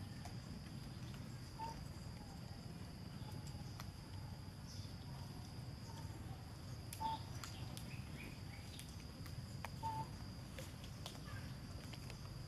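Outdoor ambience: a steady, high insect drone, with a few short chirps about one and a half, seven and ten seconds in, and scattered light clicks.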